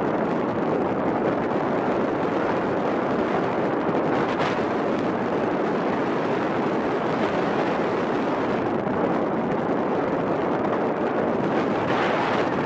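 Alpine coaster sled running fast down its tubular steel track: a steady rushing rumble of the wheels on the rails, with wind buffeting the microphone.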